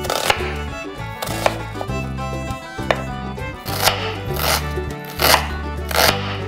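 Chef's knife slicing an onion on a bamboo cutting board, the blade knocking on the wood about once a second. Background music with a steady bass line plays under it.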